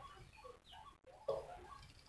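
Newborn puppies squeaking faintly while nursing, with a short louder cry just over a second in.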